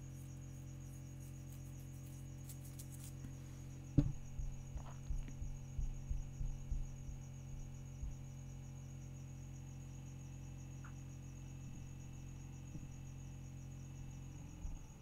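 Faint steady electrical hum with a thin high whine. About four seconds in comes a sharp click, followed by a few seconds of soft, irregular low thumps; the hum drops away near the end.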